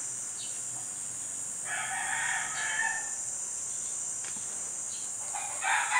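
A rooster crowing twice: one crow of about a second and a half, about two seconds in, and a second crow starting near the end.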